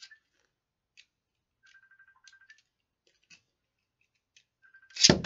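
Light plastic clicking and a few short runs of rapid ratcheting ticks as Beyblade launchers are readied. About five seconds in comes a loud clack as the Beyblade Burst tops are launched into the plastic stadium, and they start to whir as they spin.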